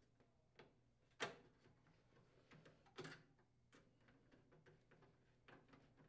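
Near silence with faint ticks and taps of a screwdriver and fingers working parts on a microwave's metal frame, with a sharp click about a second in and another about three seconds in.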